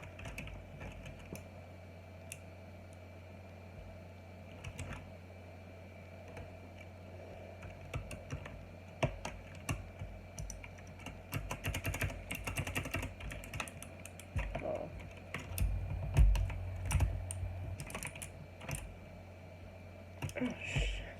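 Mechanical keyboard with Outemu Blue clicky switches being handled and pressed: scattered sharp key clicks, a fast run of key presses around the middle, then a few low thumps near the end.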